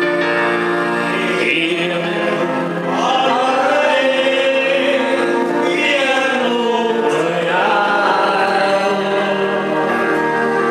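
Live song: a voice sings a slow melody with long, wavering held notes over sustained electronic keyboard chords.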